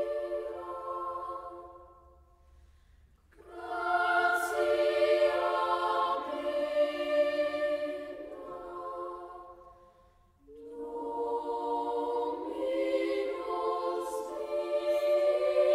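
A choir singing slow, sustained phrases of long held notes. It fades out about two seconds in and returns a second or so later, then fades again about nine seconds in before the next phrase.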